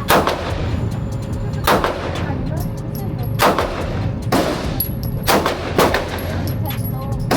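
Pistol shots fired one at a time in a slow, uneven string, about six in all, each a sharp crack with a short echoing tail.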